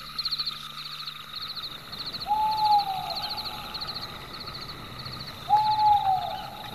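An owl hoots twice, about three seconds apart, each call a single note that rises briefly and then slides down. Behind it, insects chirp in steady rhythmic pulses.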